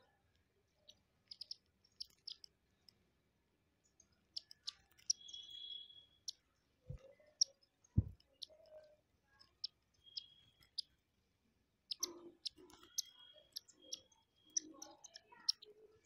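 Indian silverbills feeding at a glass jar of seed: many small sharp clicks and taps of beaks husking grain and striking the glass, with short high chirps now and then. Two low thumps come about seven and eight seconds in.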